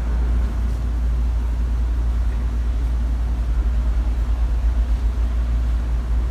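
A steady deep rumble.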